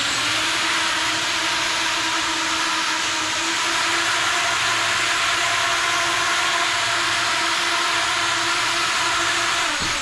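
A 6-inch racing quadcopter's four brushless motors and propellers run at hover throttle: a steady whir over a held hum note. The pitch drops briefly near the end as it comes down.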